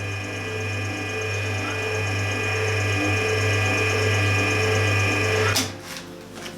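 Milling machine running with a steady low hum and a faint regular pulse about twice a second, then switched off with a click about five and a half seconds in.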